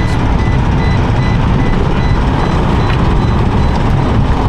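Interior noise of a vehicle driving on a rough dirt road: a loud, steady rumble of engine and tyres heard from inside the cabin.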